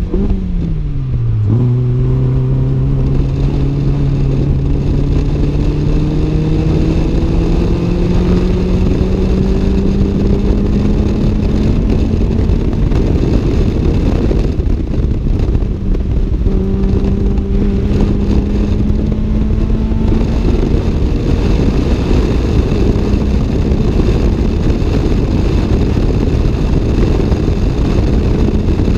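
Toyota AE86 Levin's 4A-GE twin-cam inline-four heard from inside the cabin on track. The revs drop sharply at the start, then climb slowly for about ten seconds under load. After a short break the engine pulls up again and holds fairly steady. Heavy wind and road noise run underneath throughout.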